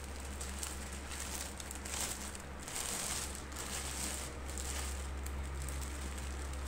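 Clear plastic wrapping film crinkling and rustling in irregular bursts as hands pull it off a kettle, over a steady low hum.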